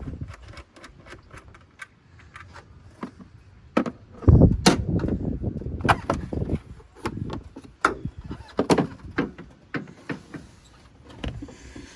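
Irregular sharp clicks and clattering knocks, with a heavier thump and a brief low rumble about four seconds in.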